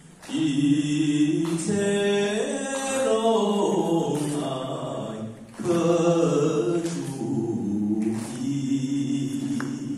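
A man singing a Hokkien Taoist hymn unaccompanied, to a Taiwanese opera (gezaixi) tune. The notes are slow and drawn out, with a short break about five and a half seconds in.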